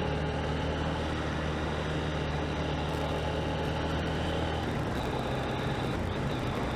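Honda CB125F's single-cylinder four-stroke engine running steadily while riding, its note changing about three-quarters of the way through.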